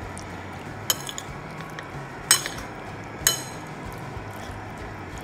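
A spoon clinking three times against a plate while raw chicken pieces are stirred in their marinade, over a faint steady low hum.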